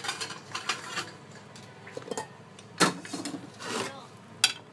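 A plate being handled and shifted over a metal drainer: irregular scraping and rubbing, with sharp knocks a little past halfway and again near the end.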